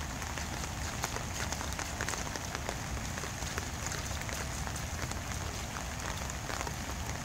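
Steady patter of light rain on wet pavement, a constant hiss dotted with small irregular splashes and drips of water.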